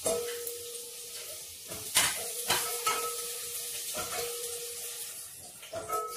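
Chopped garlic sizzling in hot cooking oil in a stainless steel pot, with a few sharp knocks of the spatula against the pot as it is stirred.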